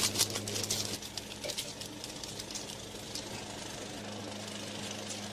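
Cinema film projector running: a steady low hum with fast mechanical ticking, the ticking busiest in the first second.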